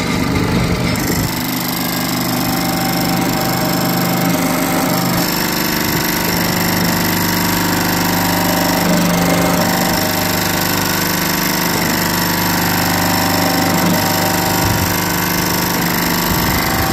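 Hydraulic clay-brick press running steadily: its motor-driven pump drones while the hydraulic cylinder works the mould plate. The note shifts a few times.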